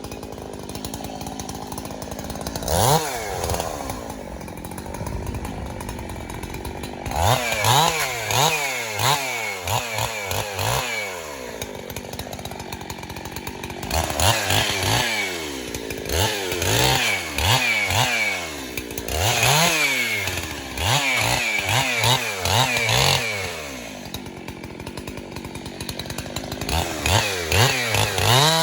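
Chainsaw cutting a spruce trunk, its engine revving up and dropping back again and again in quick throttle surges, with steadier, lower running between bursts.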